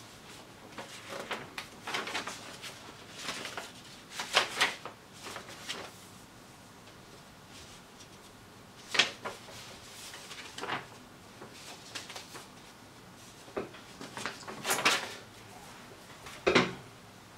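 Printed paper sheets rustling and crinkling as they are handled and leafed through, in irregular short bursts with a few louder rustles, and a duller knock near the end.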